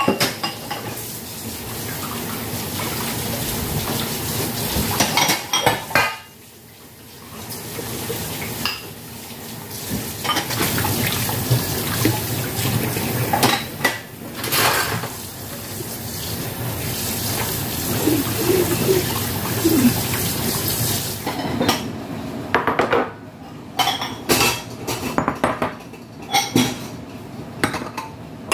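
Tap water running into a stainless steel sink while ceramic bowls and metal pots are hand-washed, with frequent clinks and knocks of dishes against each other and the sink. About three-quarters of the way through the water stops, leaving only the separate clinks of ceramic bowls and plates being set down and stacked.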